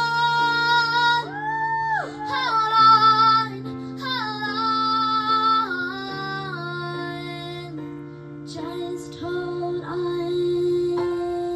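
Female voices singing long, held notes over steady accompaniment chords; the singing stops about two-thirds of the way through and a sustained instrumental note rings on.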